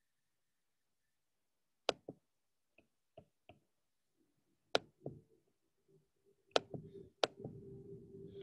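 Computer mouse clicking a series of times, single sharp clicks spaced irregularly. A low steady hum comes in near the end.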